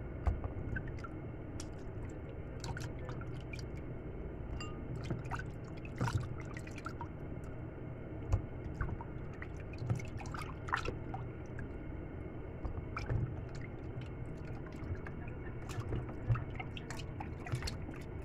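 Raw chicken wings being washed by hand in a plastic tub of water: sloshing, dripping and squishing, with irregular small knocks of the wings against the tub.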